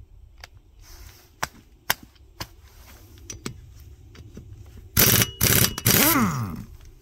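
A power tool run in three short loud bursts about five seconds in, the last one winding down in pitch as the motor stops; scattered sharp clicks and knocks come before it.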